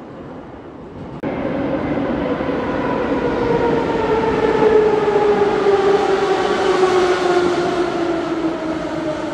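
Moscow metro train pulling into the station: a whine that falls slowly in pitch as the train slows, over the rumble of wheels on the rails. The sound jumps suddenly louder about a second in.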